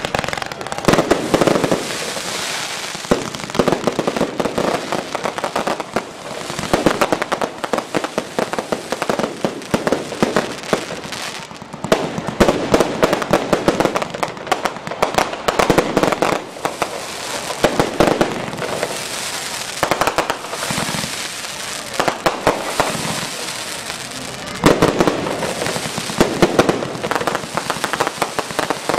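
Fireworks display: rapid volleys of sharp bangs and crackling that come in waves every two to three seconds.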